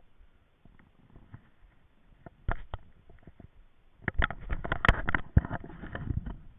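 Handling noise on a fishing boat while a just-caught black crappie is dealt with: scattered clicks, a sharp knock about two and a half seconds in, then a dense run of knocks and rattles from about four seconds in.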